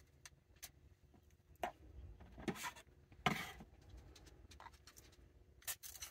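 Faint, scattered clicks and short scrapes of a metal knife and fork pulling apart roast chicken on a foil-lined pan, with a longer rustle about three seconds in.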